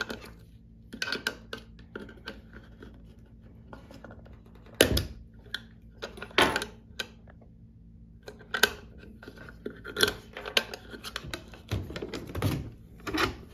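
Scattered sharp metallic clicks and knocks from handling a steel military ammo can: a plastic zip-tie seal is worked free of the latch and the latch lever is pulled open. The two loudest knocks come about five and six and a half seconds in.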